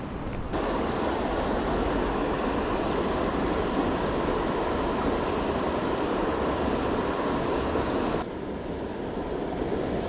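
Steady rush of river water tumbling over a weir. It drops abruptly to a quieter rush about eight seconds in.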